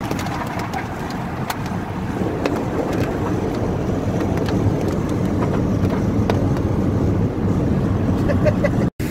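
Steady road and engine noise inside a moving car's cabin at highway speed, with scattered sharp clicks. The sound drops out briefly near the end.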